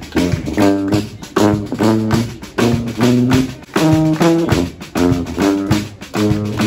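Brass band playing a lively, jazzy tune: short repeated horn phrases over a drum beat.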